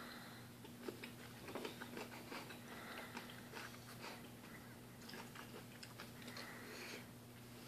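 A person chewing a mouthful of fermented salmon and rice eaten by hand, with many small wet mouth clicks and smacks, over a faint steady low hum.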